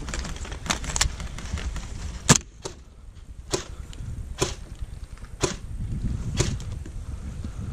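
Airsoft guns firing single shots: about seven sharp cracks roughly a second apart, the loudest a little over two seconds in, over a steady low rumble.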